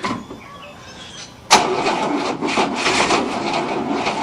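A 1967 Cadillac's 429 V8 is turned over by its starter from about a second and a half in. It cranks slowly at about four pulses a second and doesn't catch, which the owner blames on a weak battery.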